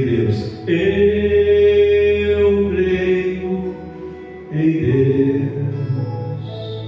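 A man's voice singing two long, held, wordless notes into a microphone over a steady, sustained instrumental backing.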